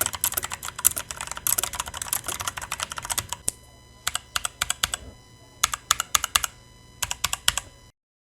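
Typing on a mechanical keyboard fitted with Outemu switches: a fast, continuous run of key clicks, then three short bursts of keystrokes with pauses between. The sound cuts off just before the end.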